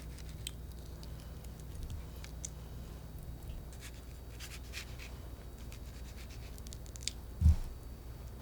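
Light scratching and scattered small clicks of hands handling food and utensils on a work surface, with one soft low thump about seven and a half seconds in.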